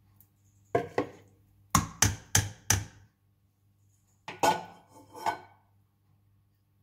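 A plastic cooking spoon knocked against the rim of a stainless steel pot to shake it off: two knocks, then four quick taps, then two more clatters near the end as it is put down.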